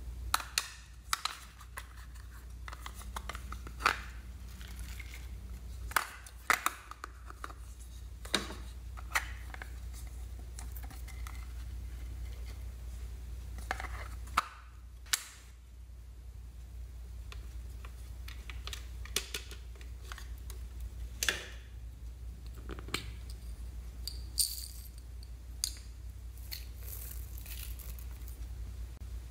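Irregular sharp clicks and light clatter of hard plastic being handled: snap-lid plastic cases and small plastic beads and sequins, over a steady low hum.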